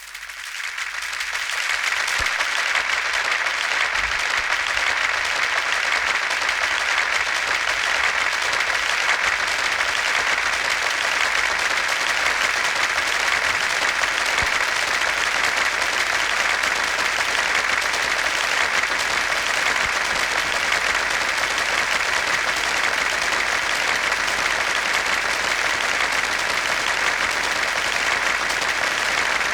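A crowd applauding: dense, steady clapping that swells up over the first couple of seconds and then holds.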